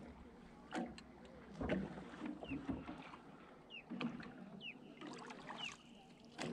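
Kayak paddle strokes: the blade dipping and splashing in the water, with drips and knocks, about once a second. A few short falling chirps sound between the strokes.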